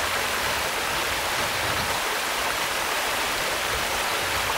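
Running water flowing steadily, an even rushing hiss with no breaks.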